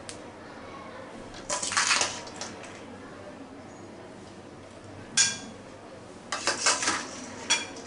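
Metal spoon scraping and clinking against a metal kadai as cooked rice is spooned in and layered over the mutton masala: a scrape about two seconds in, a sharp clink about five seconds in, then a quick run of clinks near the end.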